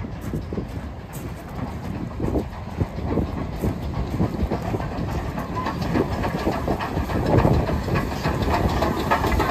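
LMS 8F 2-8-0 steam locomotive 48305 running tender-first alongside the platform with a train of wagons, the clatter of wheels and couplings growing louder from about six seconds in as it draws near.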